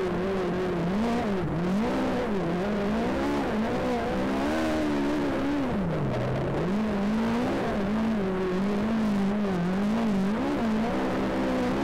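Race car engine on a speedway oval, its pitch rising and falling again and again as the throttle is opened and closed through the laps, with a deep dip about six seconds in.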